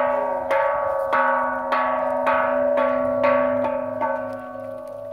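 A run of eight evenly spaced bell chime strikes, about two a second, each ringing on into the next; the strikes stop about four seconds in and the ringing slowly fades.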